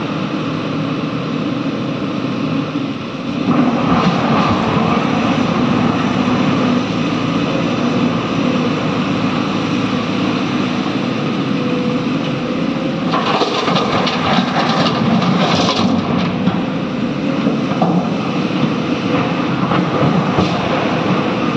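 Heavy diesel machinery running steadily during excavator loading of a tipper truck, getting louder about three and a half seconds in. A burst of clatter and rattling comes a little past the middle.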